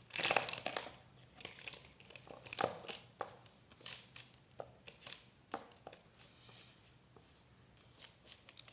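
Irregular crinkling and rustling handling noises, loudest in the first second, then a string of shorter crackles that thin out towards the end.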